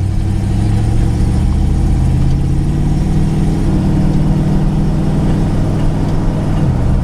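Carbureted Chrysler V8 of a 1990 Dodge D350 rescue truck running under way, heard from inside the cab; the engine note climbs as the truck gathers speed and dips briefly near the end, over road and wind noise.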